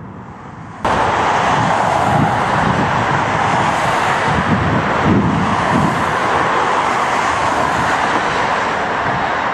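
Boeing 767-300ER's twin jet engines running steadily as the widebody taxis round in a tight turn to line up for takeoff: a loud, even rushing noise with a low rumble underneath. The sound jumps abruptly louder about a second in and then holds.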